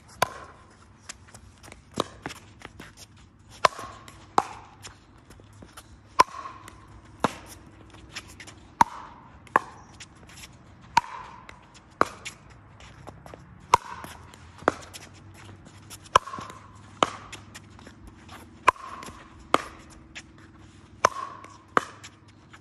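Pickleball rally: sharp pops of paddles striking the hollow plastic ball and the ball bouncing on the hard court, about one a second.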